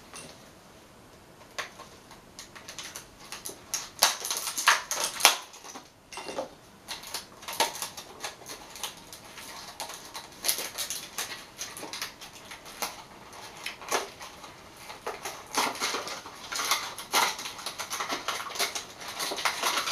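Plastic food wrapping crinkling and crackling as it is handled and unwrapped by hand, in irregular bursts of sharp crackles that start after about a second and a half and are densest about four to five seconds in and again toward the end.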